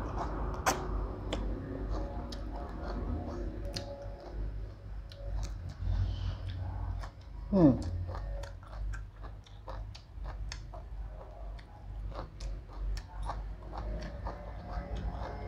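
A person chewing and smacking their lips while eating rice noodles and chicken feet, with many small wet mouth clicks. About seven and a half seconds in there is a short vocal sound falling in pitch, the loudest moment.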